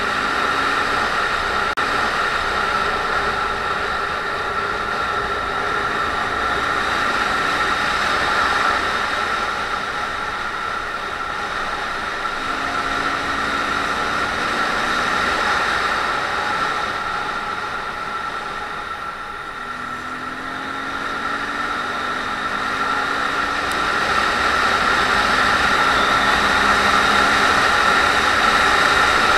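Honda MSX125's small single-cylinder four-stroke engine running under way, mixed with steady wind rush over the camera. The engine note climbs slowly twice as the bike accelerates, and the noise dips briefly past the middle before growing louder toward the end.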